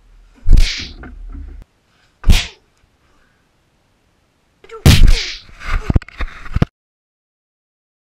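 Dubbed-in fight sound effects: a punch with a whoosh about half a second in, another just after two seconds, then a quick flurry of hits and snaps from about five seconds to under seven, after which the sound cuts to silence.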